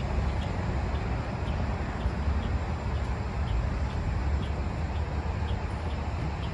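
New Flyer XD60 articulated bus's diesel engine idling at a stop, a steady low rumble, with a faint high tick repeating about twice a second.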